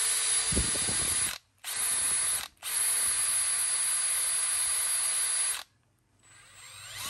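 Makita XFD13 18V brushless cordless drill-driver running free in its high-speed range (up to 1,900 rpm) with a high whine. It runs in three trigger bursts, each stopping abruptly, then spins up again with a rising whine near the end.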